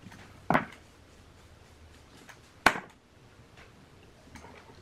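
Two sharp knocks about two seconds apart, with faint small ticks between, from a hand working at the metal chassis and heatsinks of a stripped-down Crown 2400 power amplifier.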